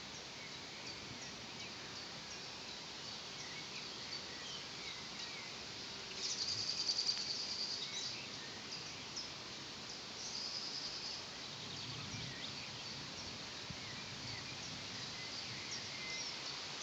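Outdoor ambience of birds chirping against a steady background hiss, with a louder, rapid trill from a nearby bird about six seconds in, lasting about two seconds, and a shorter one around ten seconds in.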